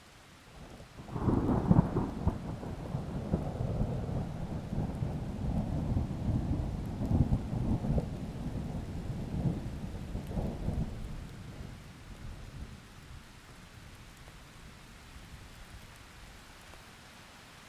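A thunderclap breaks about a second in, then rolls and crackles as deep rumbling for about ten seconds before dying away. It leaves a faint hiss of steady rain.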